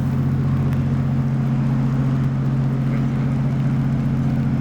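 A large engine running steadily: an even, low drone that holds without change.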